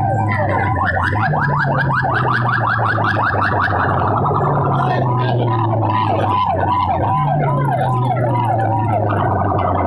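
Loud DJ music from a large loudspeaker-box sound system: a siren-like effect sweeping up and down again and again over a deep bass that holds each note for a couple of seconds. A fast run of short rising sweeps about a second in gives way to slower up-and-down whoops about halfway through.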